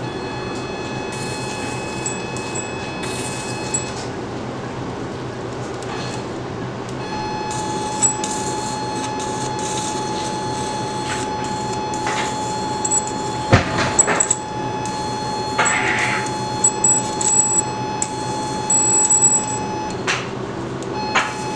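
Electrosurgical generator tone sounding steadily while an electrocautery pencil cuts scar-tissue capsule, over a steady operating-room hum. The tone comes in about a third of the way through, breaks off briefly near the end, then resumes, with scattered short crackles from the cautery tip.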